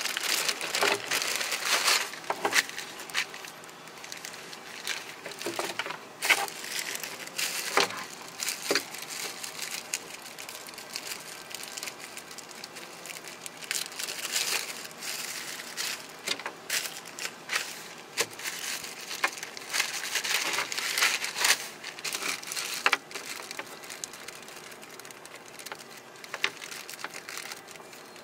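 Clear plastic packaging bags crinkling and rustling as hands open them and pull out the parts, with irregular crackles and a few sharper snaps.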